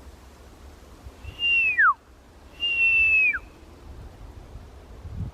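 Two loud whistled hawk calls, imitated by a person. Each is a held high note that swoops sharply down at its end, the second held longer than the first.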